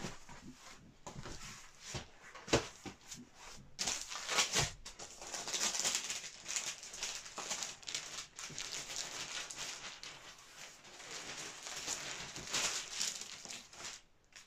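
Large paper prints being handled: sheets lifted off a stack, slid and set down on another pile, a rustling, sliding paper sound with a few light knocks.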